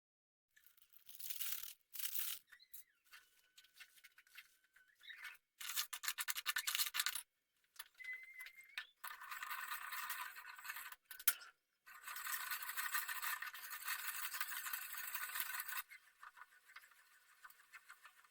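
Intermittent scraping and rustling of kitchen food preparation, in short bouts at first and then in two longer stretches, fading to faint near the end.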